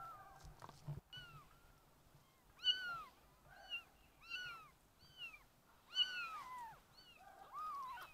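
Kittens mewing: about ten short, high-pitched mews in a row, each rising and then falling in pitch. There are a couple of soft knocks in the first second.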